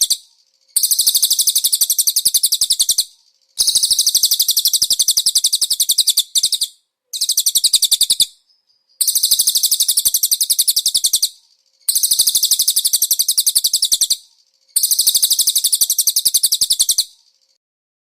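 Recorded songbird trill, very fast and high-pitched, repeated in bouts of about two to three seconds with short pauses between, about seven times; it stops near the end.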